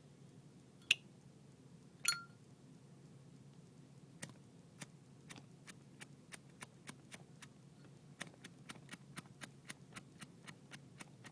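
Two sharp metallic clicks from a Zippo lighter about one and two seconds in, the second ringing briefly. From about four seconds in comes a run of faint, uneven ticks, two or three a second.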